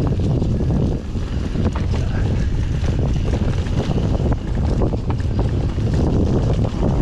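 Wind rushing over the microphone as a mountain bike rides down a dirt singletrack, tyres rolling over dry leaves and dirt, with frequent clicks and rattles from the bike over the rough ground.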